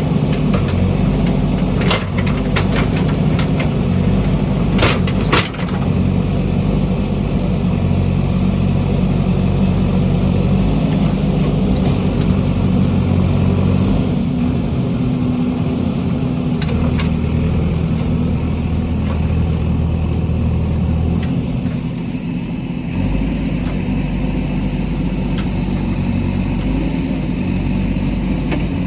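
Diesel engine of a JCB backhoe loader running steadily under work, its note shifting slightly about twenty-two seconds in. A few sharp knocks sound over it, twice close together near the start and once again later.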